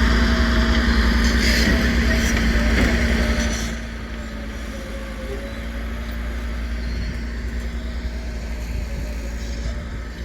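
Motor vehicle engine running with a steady low hum, loud for the first three and a half seconds and then quieter.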